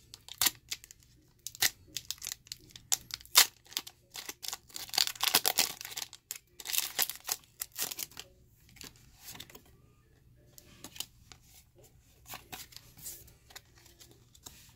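Foil trading-card booster pack wrapper being torn open by hand: a run of sharp crackles, then a denser stretch of crinkling from about four to eight seconds in, then fainter clicks and rustles of cards being handled.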